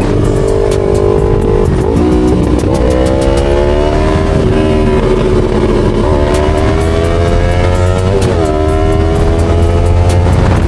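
Yamaha R3's 321 cc parallel-twin engine pulling under way, its note climbing with speed and dropping back at upshifts about two, four and a half, and eight and a half seconds in.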